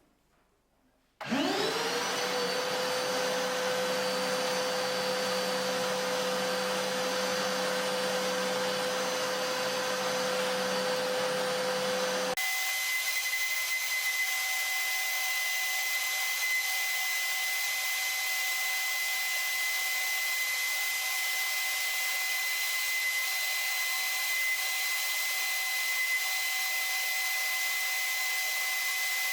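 INTERTOOL DT-1030 1400 W construction vacuum, working through a cyclone separator, switched on about a second in: its motor whine rises quickly to speed, then runs steadily. About twelve seconds in, the sound changes abruptly to a thinner, higher whine with a steady whistle.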